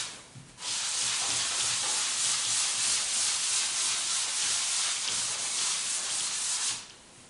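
A chalkboard being wiped with a duster: a continuous brushing rub of felt on slate, strokes going back and forth, starting about half a second in and stopping shortly before the end.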